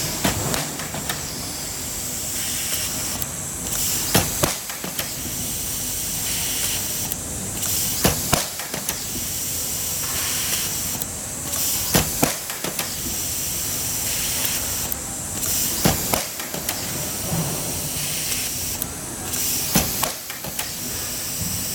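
Nut and stud welding machine cycling automatically: a sharp clank with quick clicks, then a short burst of air hiss, the cycle repeating about every four seconds over a steady hiss.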